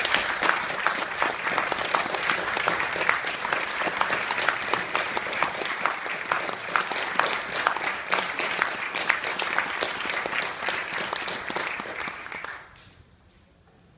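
Audience applauding, a dense patter of many hands clapping that dies away quickly near the end.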